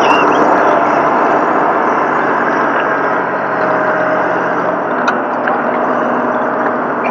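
Vehicle engine running steadily at an unchanging speed.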